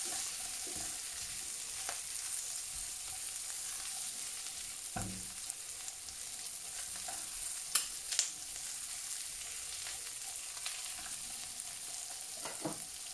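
Onions, banana pepper, garlic and ginger sizzling steadily in hot oil in a non-stick pan, being sautéed. A few light clicks and a dull knock, and a spatula stirring through the vegetables near the end.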